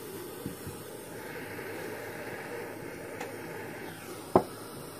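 Gas soldering torch flame hissing steadily, with a faint click about half a second in and one sharp knock a little after four seconds.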